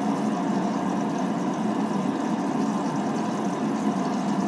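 Cosori Dual Blaze air fryer running at 400°F: a steady hum from its convection fan, with the steak's juices sizzling inside the basket.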